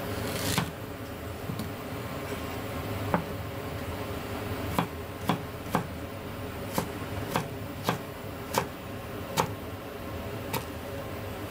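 Kitchen knife cutting down through a peeled root onto a plastic cutting board, slicing it into thin strips: about ten sharp taps, irregularly spaced half a second to a second apart, over a steady background hum.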